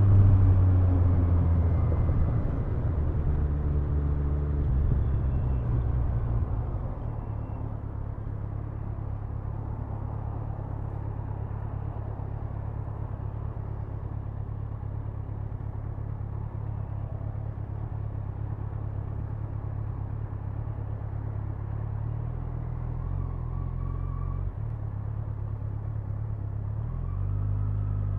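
Kawasaki Ninja 1000's inline-four engine and exhaust winding down from a loud run over the first several seconds, then running low and steady, picking up a little twice near the end.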